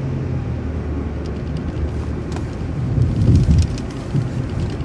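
Cabin noise of a city transit bus on the move: a steady low engine and road rumble that swells briefly about three seconds in, with a few light clicks and rattles.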